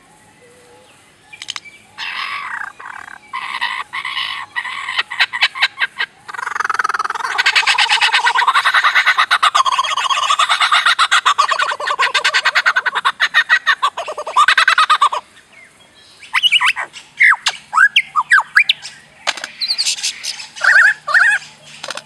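Lyrebird singing, a rapid medley of clicks, squawks and mimicked calls. Fast clicking runs open it, a long, loud, unbroken stretch of song fills the middle and breaks off about two-thirds of the way through, and short separate whistled notes follow.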